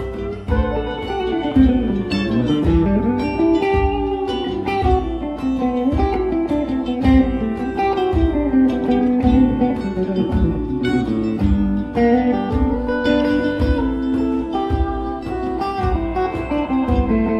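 Live band playing an instrumental passage: electric guitars, keyboard and conga drums, with a lead line of bending, gliding notes over a steady beat of low drum hits.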